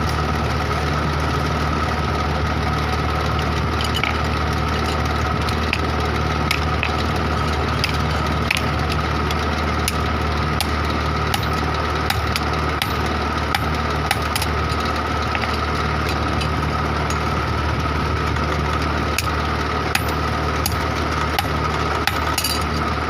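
A steady machine hum with a low drone, with scattered light clicks and crackles over it.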